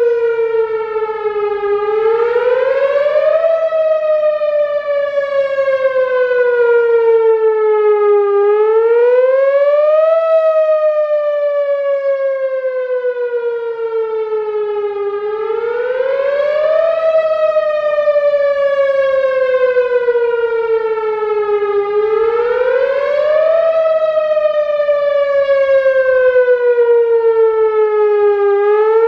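Whelen Vortex R4 rotating electronic warning siren sounding its wail tone during a scheduled test, loud. The pitch rises quickly over about a second and a half, then falls slowly over about five seconds, repeating about every six and a half seconds.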